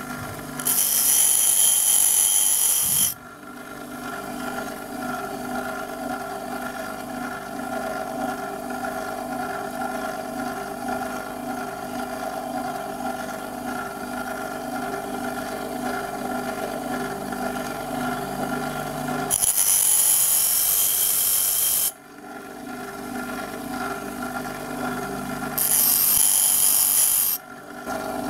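Bench grinder running steadily with a motor hum, while a twist drill bit is pressed three times against the side of the emery wheel, each time giving a loud, harsh grinding hiss lasting two to three seconds: the web at the drill's tip being thinned. The first contact comes about a second in, the other two near the end.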